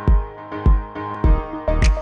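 Background electronic music with a steady kick-drum beat, a little under two beats a second, under held synth chords.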